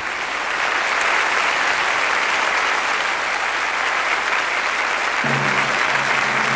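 Large audience applauding steadily. About five seconds in, low sustained music notes come in beneath the applause.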